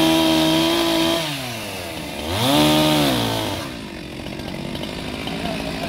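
Chainsaw engine revved high, dropping back, revved up again briefly about two and a half seconds in, then falling back to a low rough run near the four-second mark.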